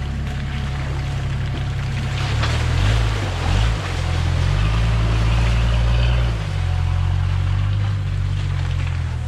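Toyota Land Cruiser HZJ73's 1HZ straight-six diesel engine pulling the truck through a deep mud hole, with water and mud splashing around the tyres. The engine note wavers about three seconds in, works hardest for the next two seconds, then eases off.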